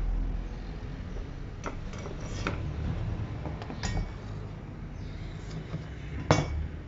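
Light clicks and clinks as a powered speaker's amplifier board and its metal mounting plate are handled: a handful of separate taps, the sharpest about six seconds in, over a low steady rumble.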